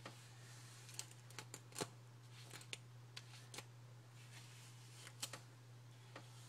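Hairbrush drawn through long wet hair close to the microphone: soft, irregular crisp strokes and clicks, about ten over the few seconds, over a steady low hum.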